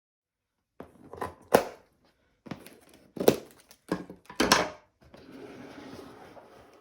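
A handful of sharp knocks and clatters of kitchen utensils over about four seconds, then a steady hiss from about five seconds in.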